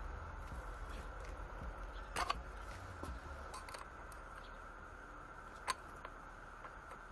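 A flat stamped steel wrench clinking against a nut and the milling machine's gearbox housing as it is fitted on: a quick double click about two seconds in, a few faint ticks, and one sharp click a few seconds later.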